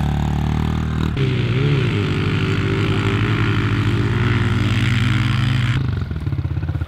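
Motocross bike engine pulling away under throttle, its note changing about a second in, then running steadily before the revs drop near the end to slower, lumpy firing pulses.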